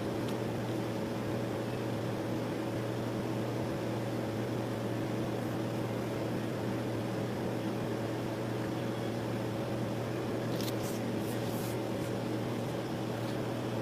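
Steady low hum under a faint even hiss, the background drone of a small room, with a few faint clicks about ten to eleven seconds in.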